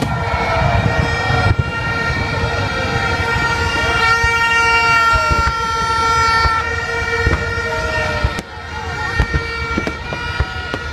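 Many toy party horns held on steady notes at once, over the thumps of a fireworks display and crowd voices. About eight seconds in the horns thin out and separate firework bangs stand out.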